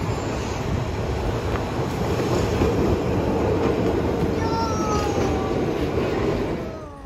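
Street tram running past, its steady rumble building and then fading near the end, with a thin wheel squeal gliding down in pitch in the second half.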